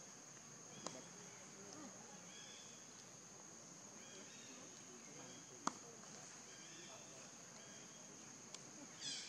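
Faint, steady high-pitched drone of forest insects, with a sharp click about a second in, a louder one a little past halfway, and a short chirp near the end.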